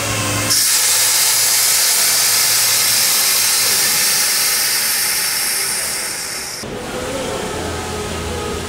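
Compressed air hissing out of a pneumatic bellows jack's release valve as the air bags deflate and lower the car. The loud, steady hiss starts about half a second in and stops abruptly about six and a half seconds in.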